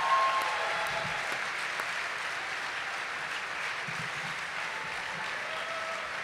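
Audience applauding steadily, loudest in the first moment and then holding even.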